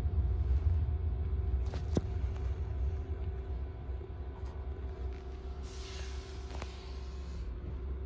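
A passenger train running, heard from inside the carriage: a steady low rumble with a faint steady hum. There are a couple of clicks about two seconds in and a short hiss around six seconds in, and the rumble grows gradually quieter.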